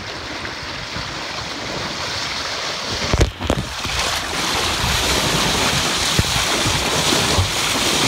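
Wind buffeting the microphone over choppy water, then the hiss and splash of water rushing along a canoe hull under sail, louder and brighter from about four seconds in. A brief knock comes a little past three seconds in.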